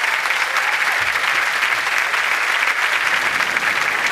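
Studio audience applauding steadily, a dense wash of handclaps.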